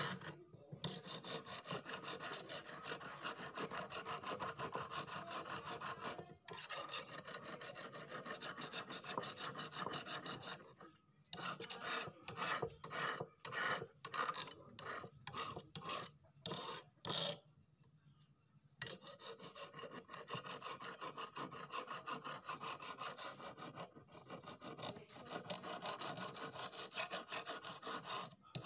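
A flat hand file rasping back and forth across a rusty knife blade held in a clamp, filing off the rust. Fast continuous strokes; in the middle the strokes come one by one with gaps, then stop for about a second before continuous filing resumes.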